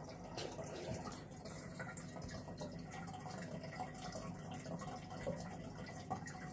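Aquarium filter running, water steadily trickling and dripping back into the tank with many small irregular splashes.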